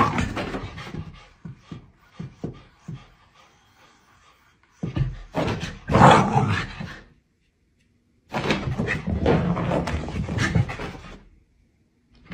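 Pomsky dog panting and vocalizing in several bursts of one to three seconds each, with pauses between them.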